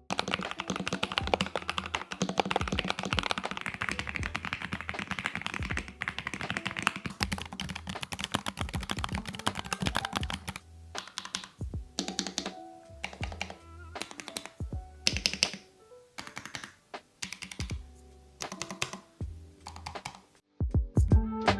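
Mechanical keyboards being typed on: a fast, dense run of keystrokes for about the first ten seconds, then slower, sparser key presses. Background music with a steady bass line plays underneath.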